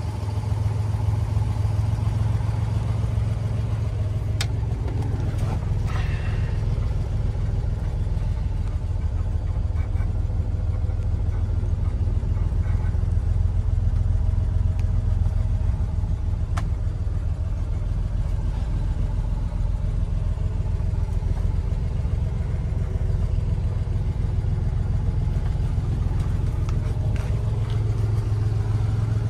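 Car engine idling steadily with a low, even hum, most plausibly the 1963 Corvair Monza Spyder's air-cooled flat-six. A few sharp clicks come over it, about 4, 6 and 16 seconds in.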